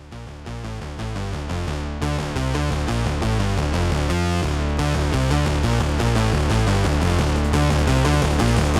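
Background music with a steady beat, electronic in sound, fading in at the start and building over the first couple of seconds.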